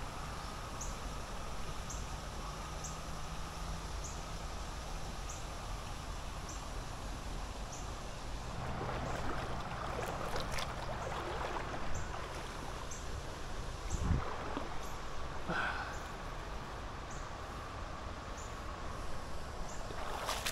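Shallow river water running over rocks, a steady rush, with faint high ticks about once a second. Brief rustles come around the middle and near three-quarters through, with a short soft knock between them.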